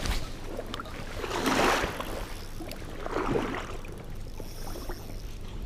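Splashing and rustling of an angler moving in shallow water, swelling twice with a few light clicks between.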